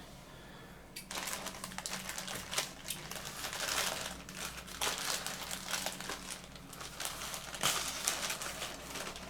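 Packaging being crinkled, crumpled and torn open by hand, a dense run of irregular crackling that starts about a second in.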